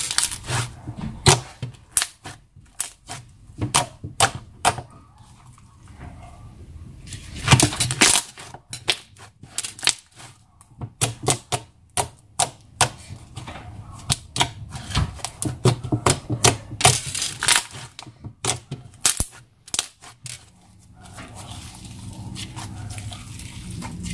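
Thick homemade clear-glue slime, full of tiny air bubbles, squeezed and poked by hand, making quick irregular clicks and pops.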